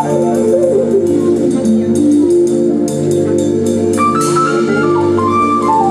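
Live band playing a jazzy dance-pop number: sustained organ-like keyboard chords over drums with steady cymbal strokes, and a stepping lead melody coming in about four seconds in.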